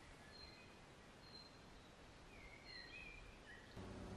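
Near silence: faint wild birds giving a few short chirps and whistles. Near the end a low steady hum takes over.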